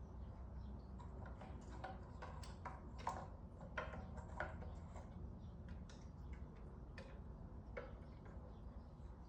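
Irregular light clicks and taps of a kitten pawing at a treat puzzle toy, knocking its parts and the treats inside, over a low steady hum.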